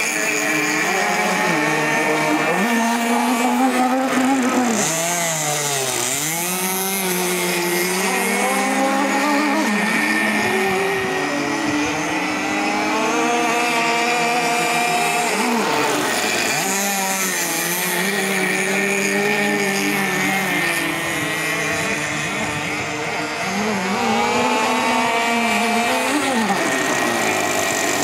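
Small 26cc two-stroke petrol engine of a radio-controlled model powerboat running at high revs, its pitch rising and falling again and again as it is throttled up and down through runs and turns, with several short dips in pitch.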